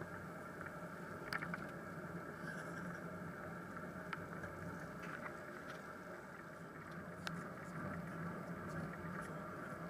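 Steady rolling noise of a moving bicycle, picked up by a camera mounted on the bike: tyres running on a wet path, with scattered small clicks and rattles.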